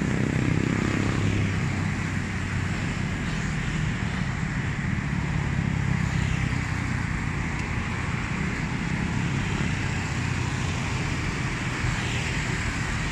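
Steady road-vehicle noise: a continuous low rumble of engine and tyres with a hiss over it.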